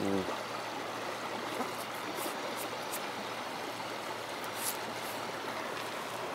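Steady rushing of a river or stream running close by, with a few faint light ticks.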